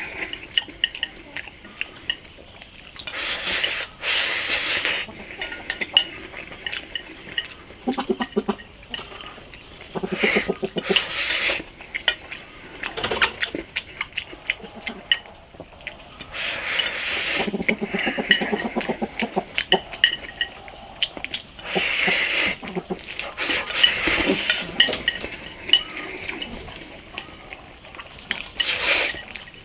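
Noisy eating from a bowl: mouthfuls of sauced rice slurped and shovelled in with chopsticks every few seconds, with chewing and chopsticks clicking against the bowl. A few short low hums of enjoyment come through between mouthfuls.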